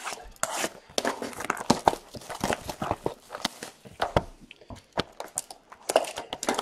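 Plastic wrapping torn and crinkled open on a box of hockey trading cards: an irregular run of sharp crackles and rips.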